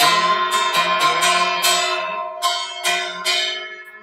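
Temple bells rung over and over for the evening aarti, about three strikes a second, each strike leaving a long ringing with several tones.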